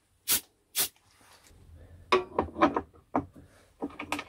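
Two short hissing squirts from a spray bottle of isopropyl alcohol, followed from about two seconds in by a run of light knocks and rubbing.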